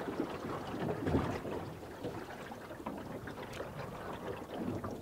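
Faint outdoor ambience aboard a stopped aluminum fishing boat: light wind and water, with a few soft, scattered knocks and clicks.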